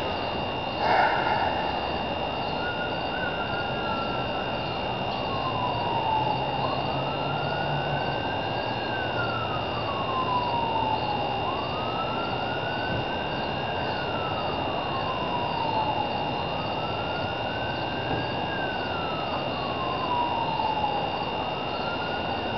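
Distant siren wailing, slowly rising and then falling in pitch, repeating about every four and a half seconds over a steady hiss and a faint constant high tone. A short knock sounds about a second in.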